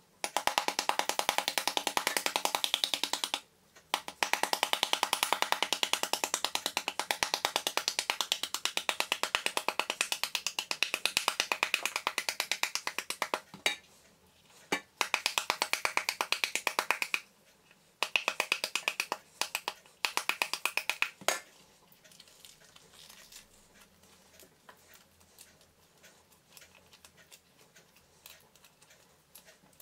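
Wooden spoon rapidly beating the skin of a halved pomegranate held over a steel pan, knocking the seeds out in fast runs of sharp taps with short breaks. The beating stops about two-thirds of the way through, leaving only faint light ticks as seeds are picked from the pith and drop into the pan.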